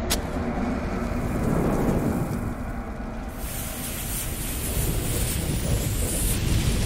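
Sound effects for an animated logo: a low, steady rumble opened by a sharp click, with a high sizzling hiss of a lit bomb fuse joining about three and a half seconds in.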